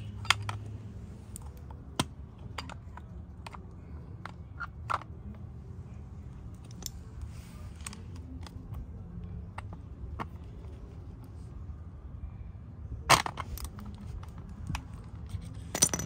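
Metal hand tools, a 17 mm wrench and a ratchet, loosening a pivot bolt on a car's shifter assembly, giving irregular sharp clicks and clinks with a few louder knocks, the loudest about 13 seconds in and just before the end.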